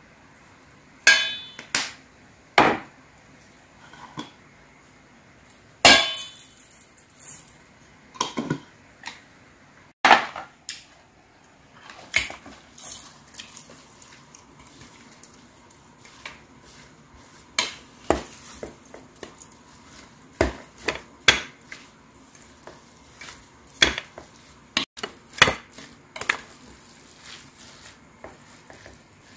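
Wooden spoon knocking and scraping against a stainless steel mixing bowl while rice and toppings are stirred together for bibimbap. The knocks and clinks come at irregular moments, with the sharpest ones in the first half.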